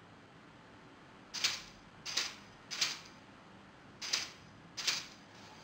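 Old Lego Technic 9V motor briefly driving a geared rack to throw a Lego 9V track switch back and forth. It gives five short mechanical bursts: three about two-thirds of a second apart, a pause, then two more.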